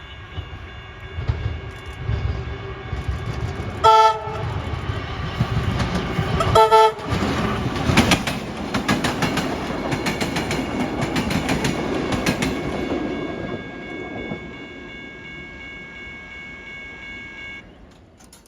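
A train sounds two short horn blasts about three seconds apart, then passes with wheels clicking over rail joints. The passing noise fades after the middle, leaving a steady high whine that cuts off near the end.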